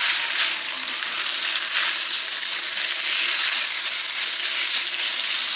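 Cornstarch-coated beef sizzling steadily in a hot oiled wok on high heat, turned and stirred with a spatula. The meat is browning rather than stewing in its juices.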